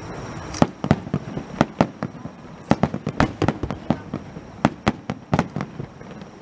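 Aerial fireworks shells bursting, a rapid, irregular run of sharp bangs and pops.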